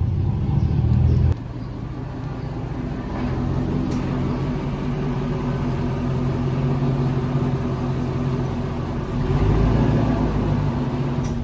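Chevy Silverado pickup's engine running steadily. The level drops abruptly about a second in.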